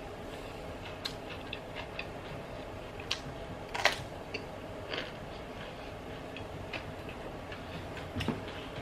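Chewing and crunching raw vegetables: scattered small clicks and wet mouth sounds, with one louder crunch about four seconds in, over a steady low background hum.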